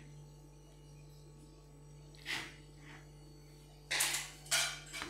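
Ripe tomato rubbed across a flat stainless-steel hand grater, its flesh being grated off the skin: one short rasp a little past two seconds in, then repeated rasping strokes from about four seconds in.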